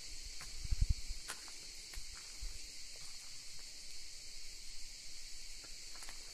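Steady high-pitched insect chorus, with a few low thumps from camera handling or footsteps about a second in.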